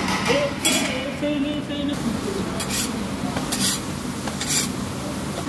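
Metal spatula scraping across a hot flat-top griddle while lifting off parathas: several short scrapes, one longer at about a second in, over a steady background hum.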